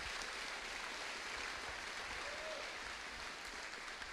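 Audience applauding steadily, a dense patter of many hands clapping in a large hall.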